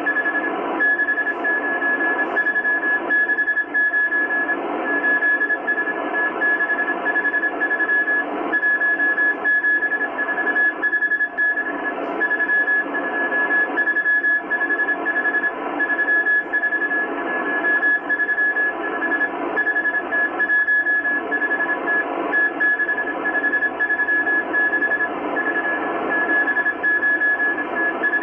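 Morse code from the M12 Russian spy station on 14951 kHz, received on a Kenwood R-1000 shortwave receiver and sending a coded message. A single beep is keyed on and off in dots and dashes over a steady hiss of shortwave band noise.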